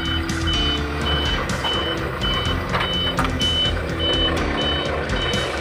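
A short, high-pitched electronic beep repeating a little under twice a second, like a vehicle's reversing alarm, over a steady low engine rumble.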